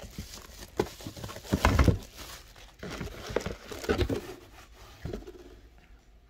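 Plastic bubble wrap crinkling and rustling in irregular bursts as it is pulled off a battery pack by hand, loudest about 2 and 4 seconds in, then dying away.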